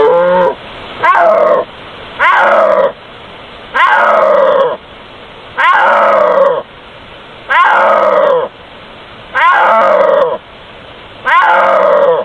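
Snow leopard calling: a series of about eight loud calls, each falling in pitch, coming roughly every one and a half to two seconds.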